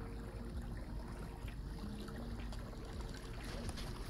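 Water trickling and lapping against the hull of a small boat under way, with a faint steady low hum.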